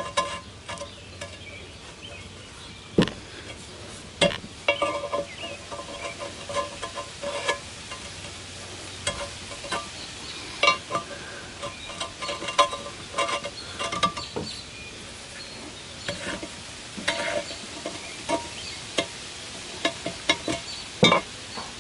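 A round metal part is twisted back and forth in its bore in a cast-iron jointer table, giving irregular scraping clicks and ticks of metal on metal. It is being worked loose.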